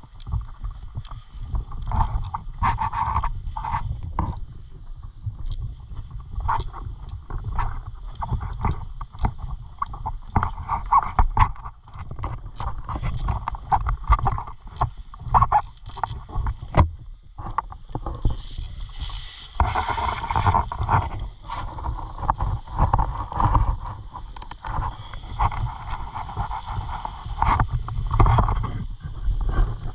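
Footsteps on wooden decking and scuba gear knocking and clinking as divers in full gear walk to the water's entry steps, over a constant low rumble on the microphone. A louder stretch of rustling noise comes about two-thirds of the way through.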